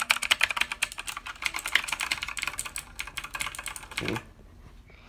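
Rapid clattering of keys on an onn RGB mechanical gaming keyboard, many keys struck in quick succession, stopping about four seconds in.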